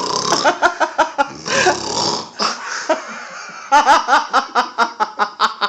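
A person faking a snore, a rough rasping breath, with quick pulsing laughter around it that runs steadily through the last couple of seconds.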